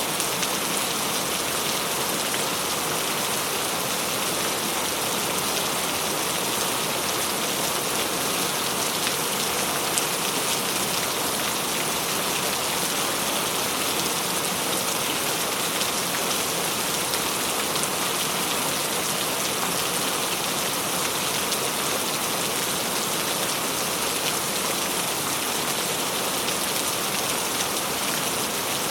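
Steady rain falling on a surface, an even hiss with many fine drop ticks and no change in intensity.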